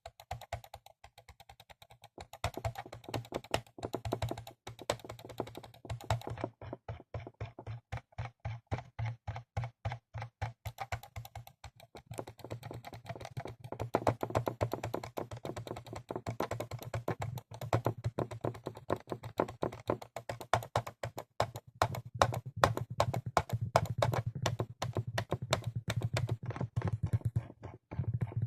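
Computer mouse buttons clicked rapidly and repeatedly, several sharp clicks a second, with a low steady hum underneath.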